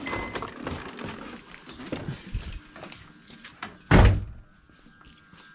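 Rustling and clatter of someone climbing out of a BMW E46 325Ci coupe, then the car door shut with a single loud thunk about four seconds in.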